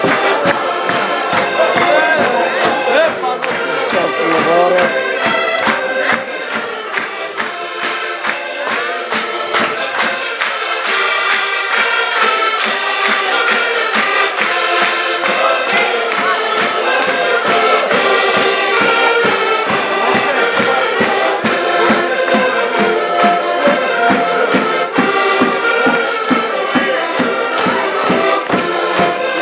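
Portuguese folk band playing an arruada (a walking street-parade tune) on accordions, with a bass drum keeping a steady beat.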